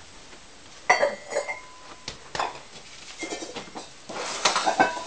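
Ceramic kiln shelves clattering against each other as they are lifted and start to fall: several sharp knocks with brief ringing, then a busier run of clinks near the end.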